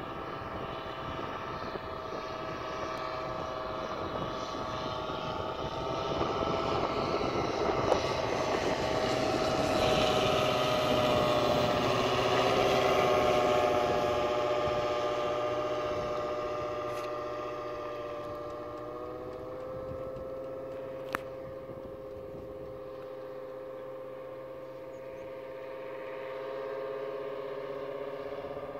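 Engine of a one-third-scale radio-controlled Sopwith Pup model biplane on a slow, low flyby: a steady engine note that grows louder towards the middle as the plane passes close, drops a little in pitch, then fades as it climbs away and swells again slightly near the end.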